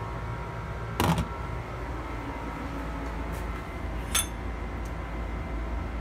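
A small ceramic bowl set down in a stainless steel sink: one sharp clink about a second in, then a lighter tick around four seconds, over a steady low hum.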